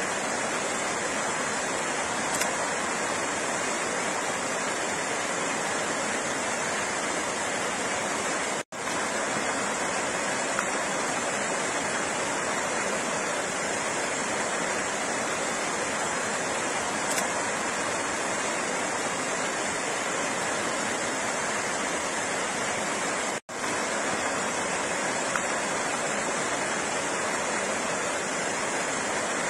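Flowing water, a steady, even rush. The sound cuts out for an instant twice, about nine and twenty-three seconds in.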